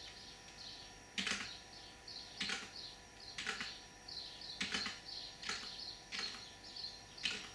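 Single computer-keyboard keystrokes, about seven separate clicks roughly a second apart, re-sending a wake-up command several times over.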